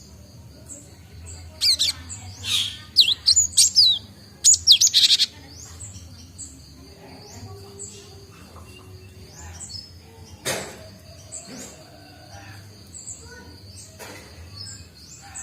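Cinereous tit (gelatik batu) calling: a quick run of sharp, high chirps between about two and five seconds in. Under it runs fainter, evenly repeated high chirping, and there is a single sharp click about ten seconds in.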